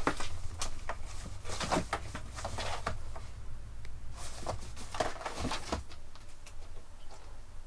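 Scattered soft rustles and light taps as cats move about around a fabric cat tunnel and a cardboard box, over a low steady hum.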